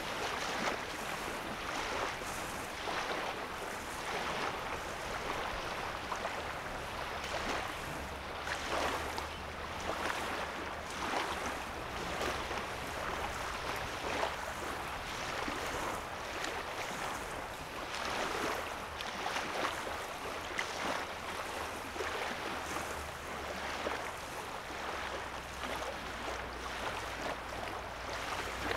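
Small waves lapping on a sandy lake shore: a continuous, uneven wash of little splashes. A faint low drone sits underneath from about six seconds in.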